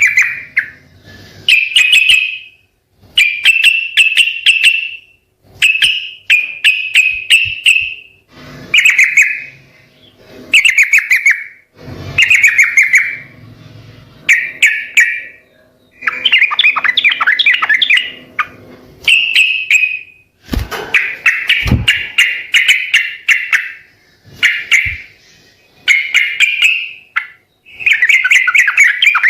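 Yellow-vented bulbul (trucukan) singing loudly, a string of short bubbling, chattering phrases repeated every second or two with brief pauses between.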